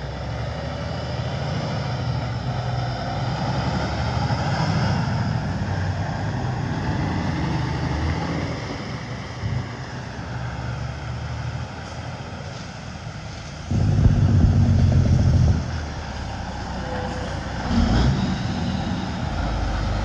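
Diesel tractor-trailer leachate tanker pulling out and driving past, its engine rumbling with tyre noise on the slushy road, building over the first few seconds. About two-thirds of the way through comes a sudden, louder low rumble lasting about two seconds, as a second heavy truck comes up.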